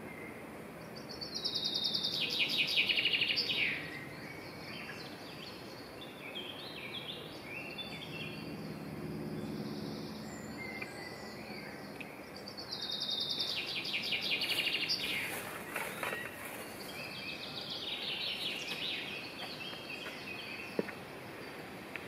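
Woodland songbirds singing over a steady background hiss: a bird gives a loud, rapid trilled phrase that falls in pitch, about a second in and again about twelve seconds later, with softer chirps from other birds between.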